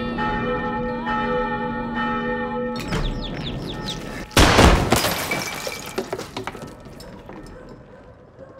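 A large church bell ringing, a long wavering hum, for about three seconds until it cuts off; then a few short high chirps, typical of chicks peeping, and a sudden loud crash of something breaking about four and a half seconds in, followed by scattered clattering that fades away.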